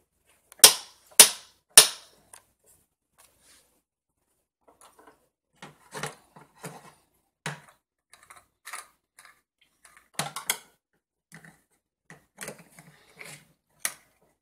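Plastic toy cookware clattering on a toy kitchen stove: three loud sharp knocks about half a second apart near the start, then lighter irregular clacks and taps as a toy pan is moved and stirred with a plastic utensil.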